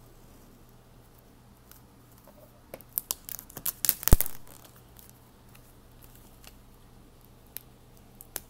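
Plastic shrink-wrap on a cardboard box being cut and torn open: a quick cluster of crackles about three seconds in, peaking in one sharp tear about four seconds in, then a couple of single clicks near the end.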